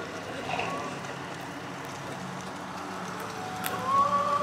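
Outdoor street ambience: steady traffic rumble and wind noise, with a couple of held tones swelling up near the end.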